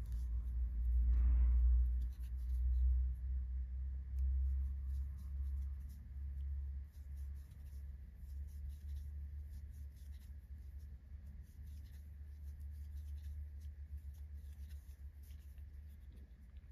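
Small, irregular scratchy scrapes of a steel crochet hook pulling white yarn through stitches while a plain round of single crochet is worked, over a low steady rumble.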